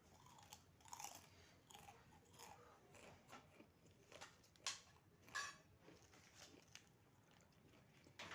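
Chips being chewed: a run of soft crunches, with two louder crunches about halfway through.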